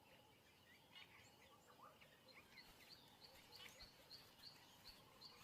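Faint natural ambience with small birds chirping: short high notes repeated about every half second, along with scattered lower chirps.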